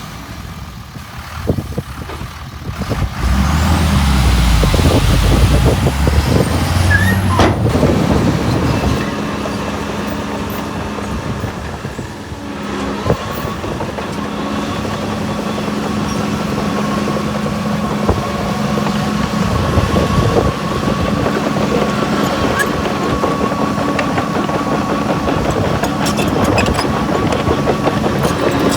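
Heavy diesel earthmoving machinery running: the engine surges under load for several seconds, then settles into a steady drone with a constant high whine.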